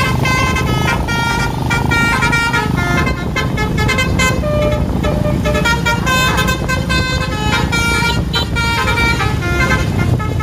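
A bus's basuri telolet horn playing a quick tune of short notes that jump up and down in pitch, over a steady low rumble.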